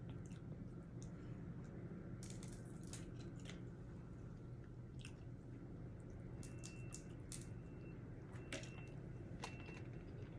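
Steamed blue crab being picked apart and eaten: scattered small cracks and snaps of shell with soft wet squishing and chewing, over a faint low hum.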